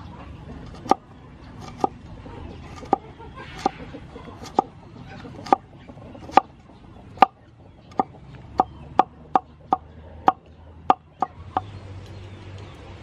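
Knife chopping on a cutting board: about seventeen sharp chops, roughly one a second at first, then quicker past the middle, stopping shortly before the end.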